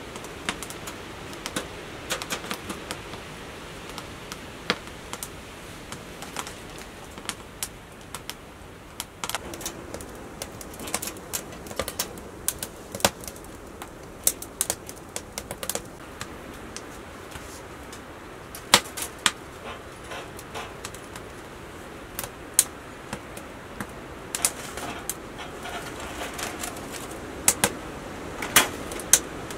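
Firewood crackling and popping in a Winnerwell steel tent stove: irregular sharp clicks over a steady low hiss. A few louder metal knocks come near the end as the steel oven box is set on the stove.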